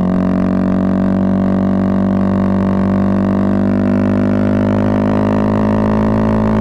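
Bajaj Pulsar 220F's single-cylinder four-stroke engine running through a Race Concepts full-system aftermarket exhaust, held at steady revs under constant throttle while riding: an even, droning exhaust note that holds one pitch.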